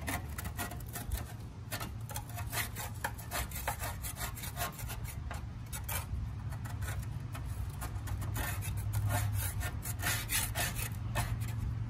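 Grass Buster deck scraper scraping caked grass clippings off the underside of a riding mower's steel deck around a blade spindle, in quick, uneven rasping strokes.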